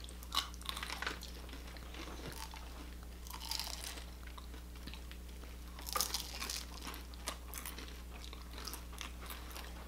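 Close-up eating sounds: several people biting and chewing crispy fried chicken, with irregular short crunches, the loudest about six seconds in, over a faint steady low hum.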